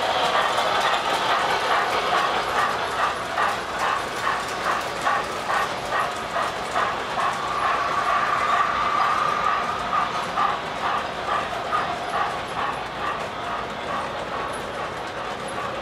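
O gauge model freight train rolling past on three-rail track, with a steady rhythmic clatter of a few pulses a second. A held tone comes in about halfway through.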